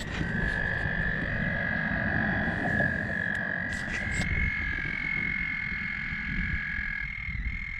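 Frogs calling at a pond: long, steady high-pitched trills, two overlapping at slightly different pitches, over a continuous low rumble with a few faint clicks.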